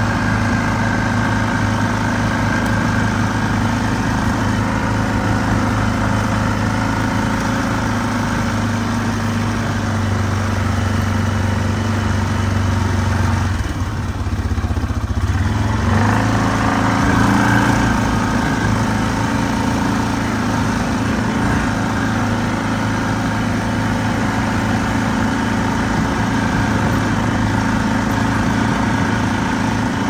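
Off-road vehicle's engine running steadily at low speed, its note dropping briefly about halfway through and then picking up again.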